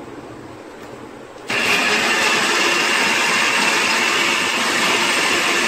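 Bullet-style personal blender motor switching on about a second and a half in and running steadily, grinding a wet coriander and tomato chutney for the second time.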